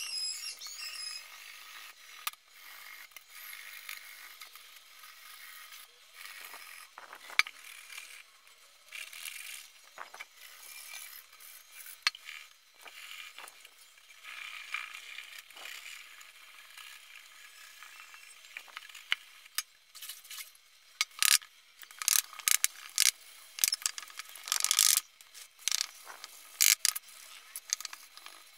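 Hands scrubbing and handling a copper box: scraping and rubbing on the thin metal, with irregular clicks and knocks. The clicks and knocks come thicker and louder in the last several seconds.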